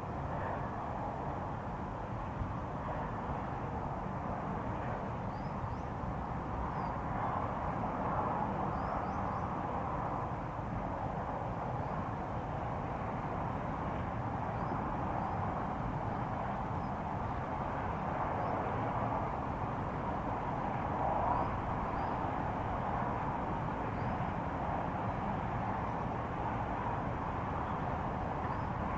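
A steady, unbroken droning noise in the open air, with a low rumble beneath and a slight swell about two-thirds of the way through. Faint high chirps come through now and then.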